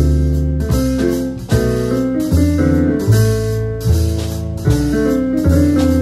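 Jazz trio playing live: a Casio stage piano carries the chords and melody over an upright double bass and a drum kit, with cymbals struck about once a second.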